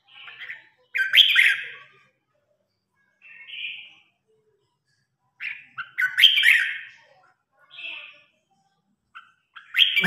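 Red-whiskered bulbul singing its contest song in short, bright phrases repeated every second or two. The loudest phrases come about a second in and about six seconds in, with one more near the end.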